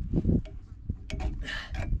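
Small metal clicks and scraping of a pick working a snap ring out of a hydraulic cylinder's gland, after a dull thud near the start.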